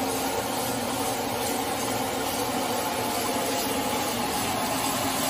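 Steady hiss of beef chunks frying in a large wok over high heat.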